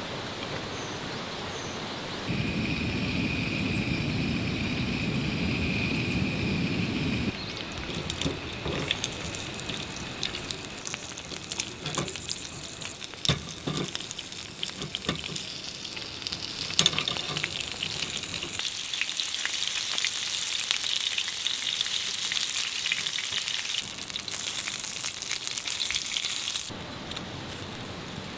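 Food frying on a camping griddle: a steady crackling sizzle, heard in several short cuts, with a few sharp ticks.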